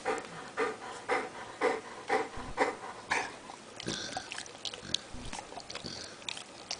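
Bernese mountain dog snorting and snuffling in even breaths about two a second, then, from about four seconds in, wet licking and lip-smacking with his tongue after eating frozen yogurt.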